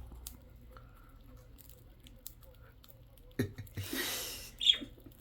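Lovebirds feeding: faint scattered clicks of seed being cracked, then a brief rustle about three and a half seconds in and one sharp, falling chirp near the end.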